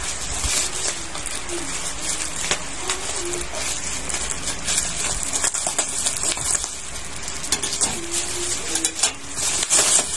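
Plastic packaging crinkling and rustling as a parcel is unwrapped by hand, a continuous run of sharp crackles.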